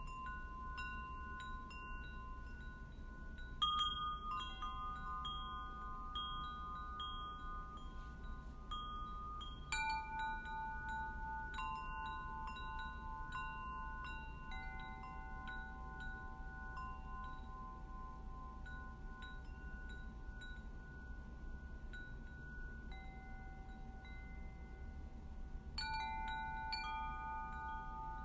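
Chimes ringing: several long, overlapping metallic tones that hang and slowly fade, with fresh clusters of strikes about four seconds in, about ten seconds in, and near the end.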